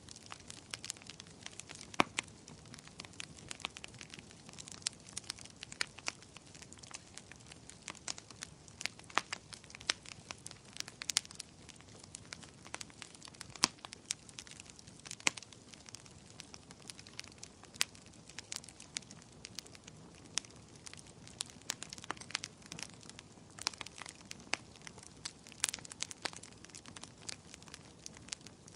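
Wood fire burning: constant irregular crackles and pops, with several sharper snaps standing out, over a soft steady rush of flame.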